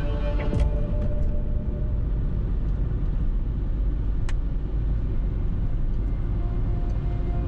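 Steady low rumble of a car driving on the road, with a few sharp ticks early on and one more about four seconds in. Soft music with held tones begins to come in near the end.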